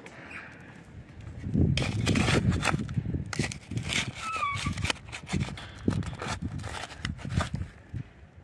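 Plastic digging scoop scraping and chopping into rocky, gravelly soil, stones clattering: a run of scrapes and knocks, heaviest from about two seconds in to the middle.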